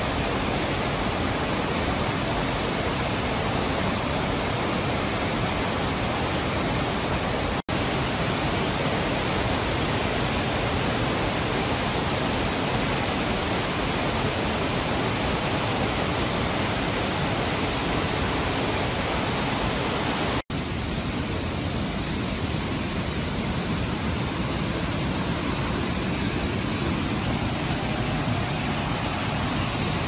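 Steady rushing of a forest waterfall and the stream below it, broken by two very short dropouts where the sound cuts between shots, about a quarter and two thirds of the way in.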